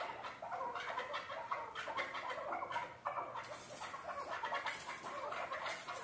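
Chukar partridges giving rapid, repeated clucking calls, with a short break about three seconds in. These are males calling at each other as they square up to fight.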